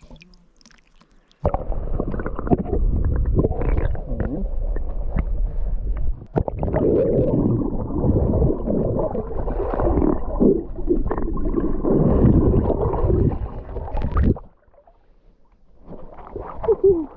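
Muffled gurgling and rumbling of lake water heard with the camera's microphone under water. It starts abruptly a second or so in and cuts off abruptly near the end, as the camera comes back out.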